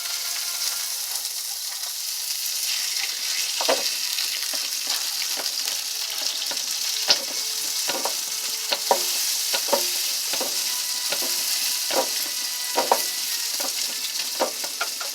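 Hamburger frying in a pan with a steady sizzle, with irregular clicks and knocks over it.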